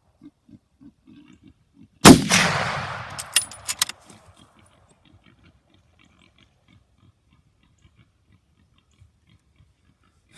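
A single .30-06 rifle shot about two seconds in, its echo rolling away over about two seconds, followed by a few sharp clicks.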